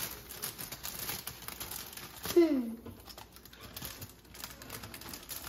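Plastic cereal bag crinkling as it is handled and cut open with scissors, with a brief, loud sound falling in pitch about halfway through.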